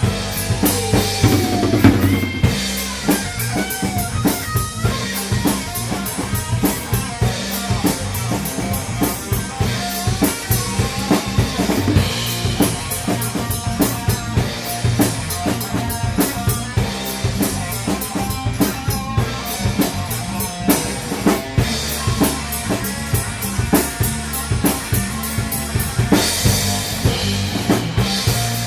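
Rock music with a driving drum-kit beat, bass drum and snare, over bass and guitar.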